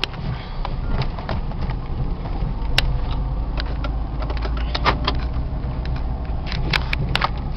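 Car cabin noise while driving slowly over a rutted, potholed dirt road: a steady low rumble of engine and tyres, with sharp knocks and rattles from the car jolting over the bumps, several in quick succession near the end.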